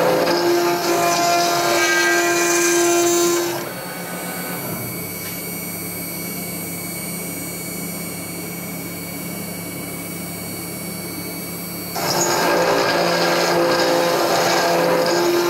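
Mechmate CNC router's endmill milling 10 mm S355MC steel plate: a loud, steady cutting noise with a held tone. About four seconds in the tool lifts clear of the steel and only the spindle is heard running, much quieter. Some eight seconds later the endmill drops back into the plate and the loud cutting returns.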